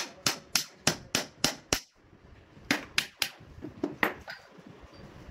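Rapid sharp hammer taps, about three and a half a second, stopping just under two seconds in; three more taps follow about a second later, and one more just after.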